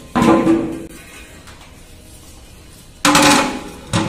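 Large metal tray-lid clanking onto the rim of a big metal cooking pot as the pot is covered, each clank ringing briefly: twice, about three seconds apart, the second followed by a smaller knock.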